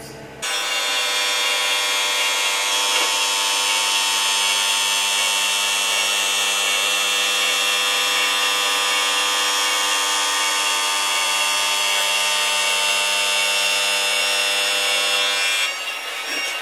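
CNC milling machine cutting a chamfer with a chamfer tool around the edge of a round part: a steady, high-pitched ringing of the spinning cutter and spindle. It starts abruptly about half a second in and drops off near the end.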